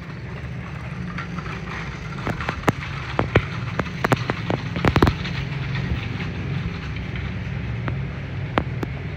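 Low rumble of wind on the microphone, with scattered sharp crackles and clicks that come thickest from about two to five seconds in.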